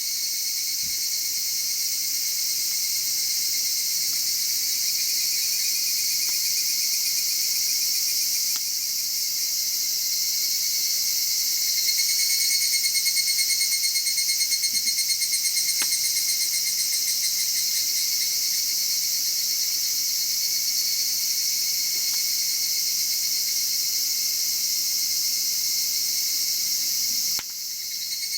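A steady chorus of crickets and other insects chirping in several high-pitched layers with a fine, rapid pulse. A few faint clicks sound through it, and the chorus dips briefly near the end.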